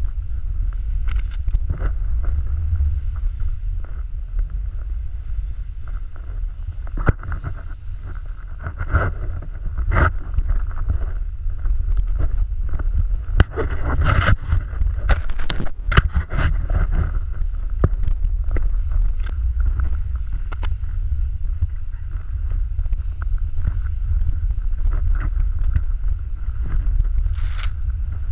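Heavy wind rumble on the camera microphone as a snowboard rides and scrapes through powder snow, with scattered sharp knocks and clicks, thickest about halfway through.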